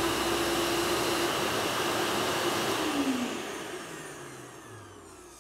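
Cougar Quiet ash vacuum motor running with a steady, muffled whir like a household vacuum, its motor top insulated. About three seconds in it is switched off, and the whir falls in pitch and fades as the motor winds down.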